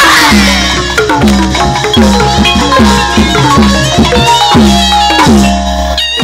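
Burmese hsaing waing ensemble music: a quick run of tuned-drum strokes, each dropping slightly in pitch, under a sustained high melody line, with a cymbal-like crash at the start.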